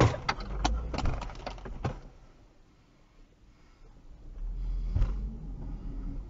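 Sharp knocks and clatter dying away over the first two seconds, the aftermath of a car crash impact. A low rumble from the car follows about four seconds in, with one more knock about a second later.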